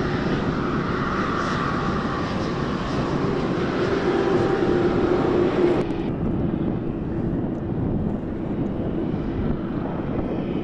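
Boeing 747-8's GEnx turbofan engines running as the jumbo jet moves on the ground: a steady jet rumble with a low hum through it. About six seconds in, the sound changes abruptly and loses its hiss, becoming duller.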